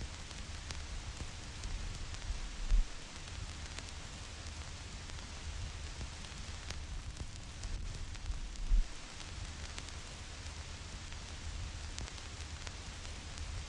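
Vinyl record crackle: a steady hiss with scattered clicks and pops from the stylus meeting dust and flaws in the groove, over a low rumble. Two louder low thumps stand out, about six seconds apart.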